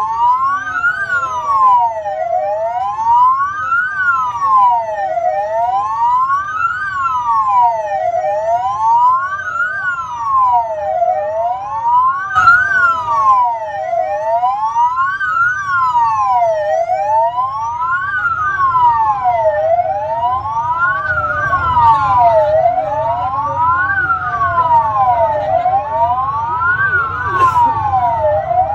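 Two wailing sirens on the procession's escort vehicles, each rising and falling about every three seconds and slightly out of step with each other, over a low rumble.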